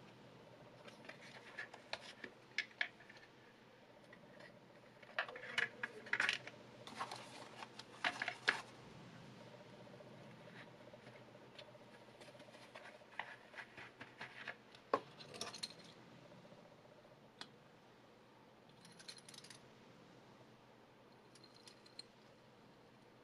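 Hands handling a watch box and its contents (card, cardboard box parts, foam insert, cloth), making irregular scrapes, rustles and small clicks, with one sharp click about halfway through. Near the end, a few faint clicks as the stainless steel bracelet's clasp is handled.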